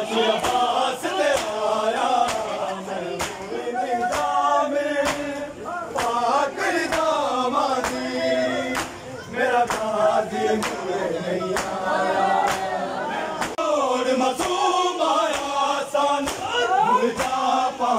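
A group of men chanting an Urdu noha (Muharram lament) in unison, with sharp slaps of hands on chests (matam) keeping a beat about twice a second.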